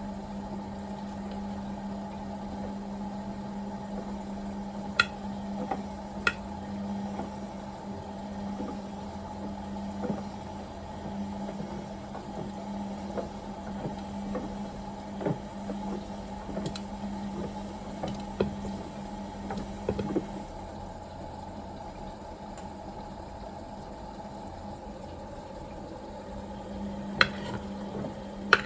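Beko WMB61431W washing machine running with water in its turning drum: a steady motor hum with liquid churning, broken by a few sharp clicks.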